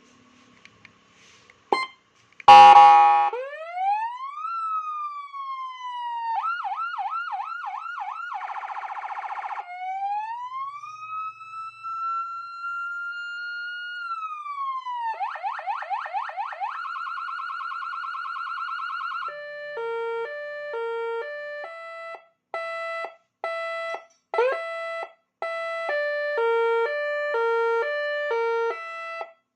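A TOA AS920 electronic siren demonstrating its tones. About two and a half seconds in comes a loud short blast. Then a slow wail rises and falls, fast yelp sweeps follow, then a rapid warble. In the last ten seconds, patterns of tones step back and forth between several fixed pitches.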